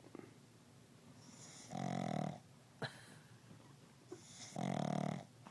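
A dog snoring while asleep sitting up: two loud snores about three seconds apart. Between them comes one short, sharp click.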